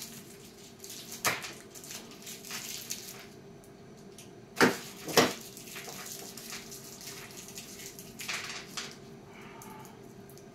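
Hand-handling noises at a workbench: small hardware and parts rustling and clicking, with two sharp knocks about halfway through, over a faint steady hum.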